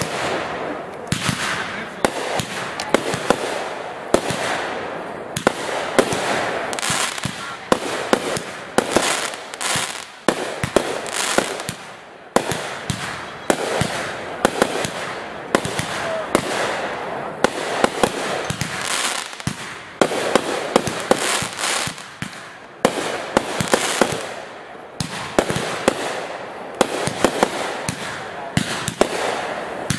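Fireworks going off in rapid succession: many sharp bangs from bursting shells over a steady crackle, with no pause.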